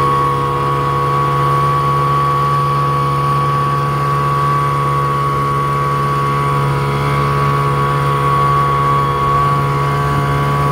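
1956 Wizard Super 5 two-cylinder, water-cooled outboard motor running steadily at full throttle, pushing a small aluminum boat at its top speed of about 7-8 mph.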